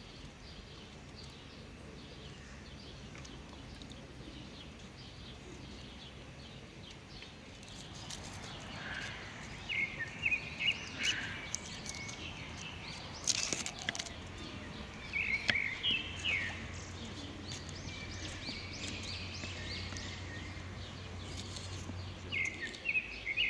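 Open-air background with birds giving short chirps now and then through the second half. A few light clicks come from a small knife cutting vegetables by hand, the sharpest about halfway.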